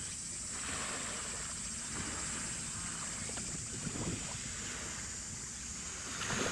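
Wind buffeting the microphone over sloshing waves, in uneven gusts, with a steady high-pitched hiss underneath.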